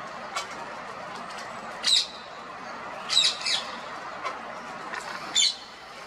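Ring-necked parakeet giving short, harsh, shrill calls: one about two seconds in, a quick pair a little after three seconds, and one more near the end, over steady background noise.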